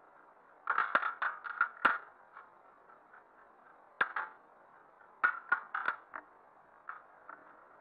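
Close-range airsoft shots: volleys of sharp clacks, a quick run of about seven in the first two seconds, a pair a little after four seconds, another run of about five past five seconds, and a few fainter ones near the end.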